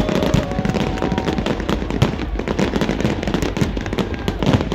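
Fireworks going off in dense, rapid succession, a continuous crackling with a heavier bang about two seconds in.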